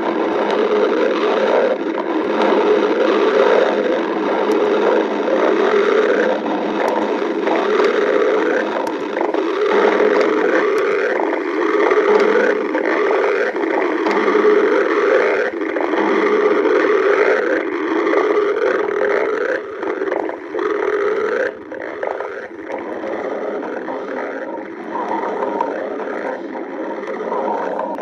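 A person's stomach growling: long, continuous rumbling gurgles, growing somewhat quieter in the last third.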